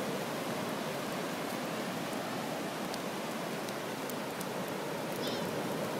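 Ocean surf breaking and washing up the shore, a steady, even rush of noise.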